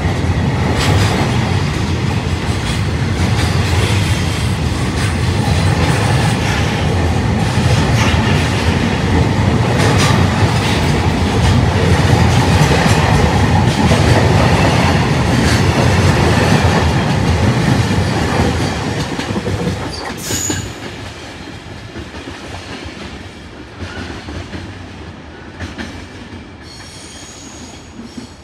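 Container freight train rolling past: a heavy rumble with wheels clicking over rail joints. After about eighteen seconds it fades away, with a brief high wheel squeal and a few fainter squeals near the end.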